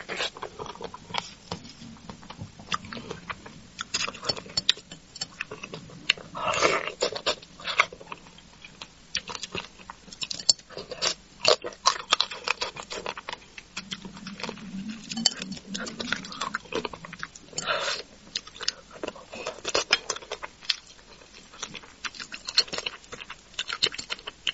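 Close-miked eating of braised crucian carp: chewing, lip-smacking and sucking the flesh off the fish, with many small wet clicks and a few louder sucking slurps.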